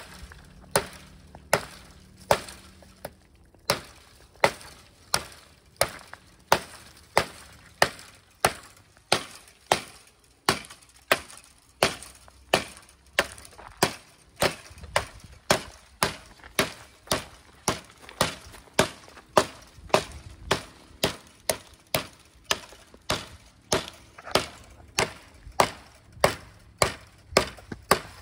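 A large fixed-blade knife chopping into a dead sapling: sharp blade-into-wood strikes in a steady rhythm of about three every two seconds.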